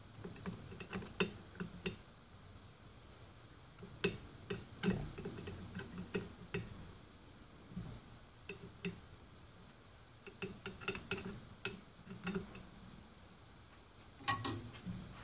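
Scattered runs of small metallic clicks and ticks: a hand screwdriver snugging the cover-plate screws on an e-bike's direct-drive hub motor.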